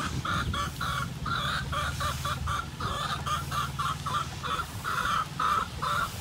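Chicken clucking: a run of short, repeated clucks, two or three a second and slightly irregular, over a steady low hum.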